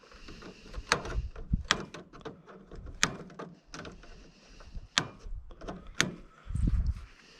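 Wire cutters snipping the wiring off an electric range's control switches: a series of sharp snaps a second or so apart, with clatter of wires and metal parts being handled and a low thud near the end.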